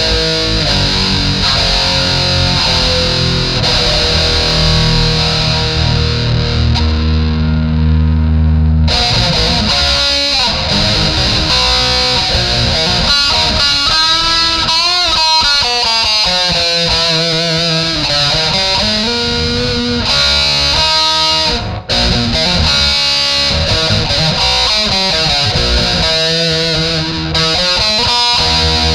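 Electric guitar played through distortion, with heavy held low notes and then notes that waver and bend in pitch.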